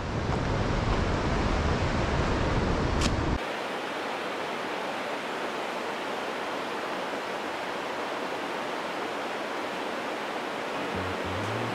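Glacial river rushing through a deep mountain gorge, a steady heavy rush of whitewater. About three seconds in it cuts abruptly to a thinner, quieter rush, and faint music comes in near the end.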